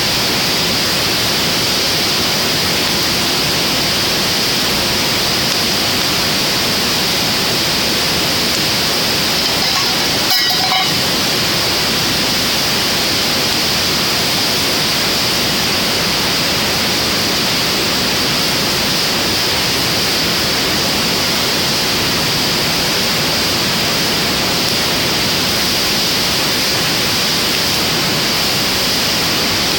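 Driftwood fire burning in a fire pit with a steady hiss, and one brief sharper sound about ten seconds in.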